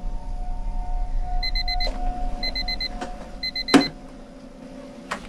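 Digital wristwatch alarm beeping in quick runs of four, three times about a second apart, over a steady hum. A sharp knock follows the third run, and the beeping stops after it.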